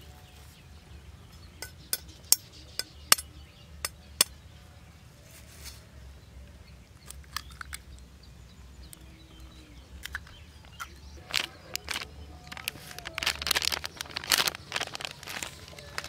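Eggs tapped on the rim of a stainless steel bowl to crack them: a run of sharp clicks a couple of seconds in, a few more later, then a busier stretch of knocks and rustling near the end.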